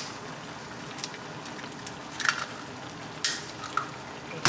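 Ramyeon broth with soft tofu simmering in a frying pan with a steady hiss, as an egg is cracked with a sharp tap a little past halfway and dropped in, followed by a few lighter clicks.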